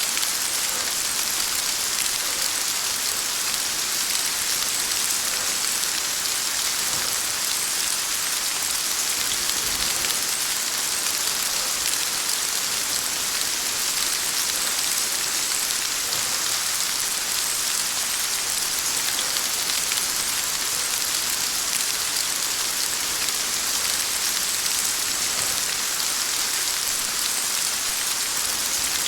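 Steady heavy rain falling: an even, unbroken hiss of many drops, strongest in the high range.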